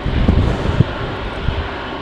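Jet airliner engine noise, a steady rushing sound, with strong wind gusting on the microphone in uneven low buffets that are the loudest part.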